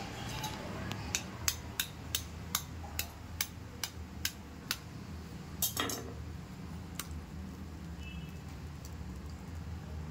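A quail egg tapped repeatedly against the rim of a stainless steel bowl to crack its shell: a run of about ten light clinks, two or three a second. A louder knock follows about six seconds in and one more a second later, over a low steady hum.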